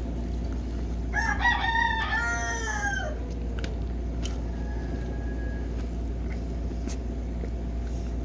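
A rooster crows once, about a second in: a call of about two seconds in several stepped notes that falls away at the end.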